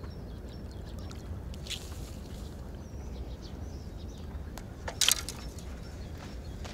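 A freshly landed fish flapping on wet sand, with one brief loud slap about five seconds in, over a steady low rumble.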